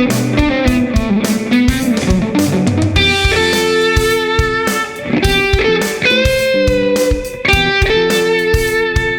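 Fender "Dan Smith" Stratocaster electric guitar recorded direct through an Audient Sono amp-modelling interface, playing a melodic lead line of held, sustaining notes, with a note bent upward about six seconds in. A steady beat runs behind it.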